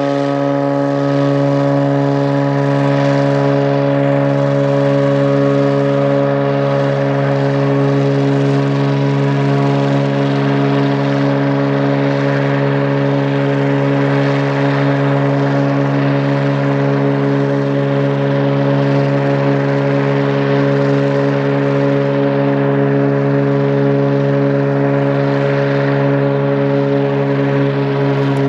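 Cessna floatplane's engine and propeller at full takeoff power, a loud steady drone that holds one pitch, over the hiss of spray from the floats on the water. The plane is overweight and, though it runs on the water for more than 2,000 m, does not lift off.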